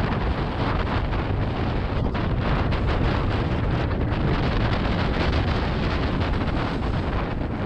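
Wind rushing over the camera microphone with the constant scraping of a Lindauer Top sled's runners over packed snow during a fast run, with frequent small rattles and bumps.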